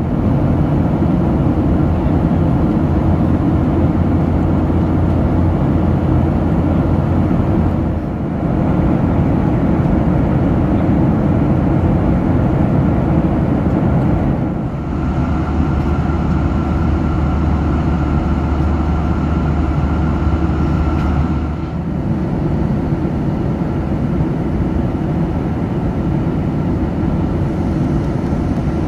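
Steady cabin roar of a Boeing 737-800 in flight: the CFM56 jet engines and rushing air. It dips briefly three times, and a faint steady high tone sits in it for a few seconds in the middle.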